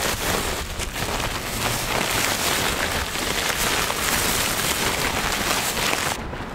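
Salt pouring out of a plastic tarp into a woven polypropylene sack: a steady, loud hiss of running grains with the crinkle of plastic sheeting. It cuts off suddenly near the end.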